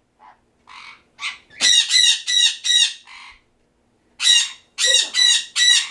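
A pet bird squawking: a few soft calls, then two runs of four loud, harsh squawks in quick succession.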